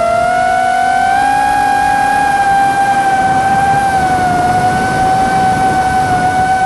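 A motor running with a steady whine, its pitch rising slightly about a second in and dipping briefly near four seconds, over a rushing noise.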